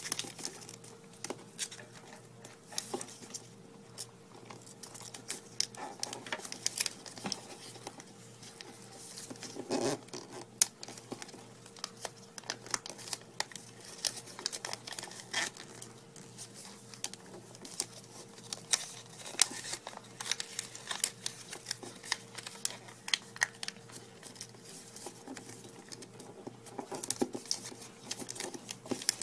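A sheet of origami paper being folded and creased by hand: irregular crinkling and rustling with many scattered sharp crackles.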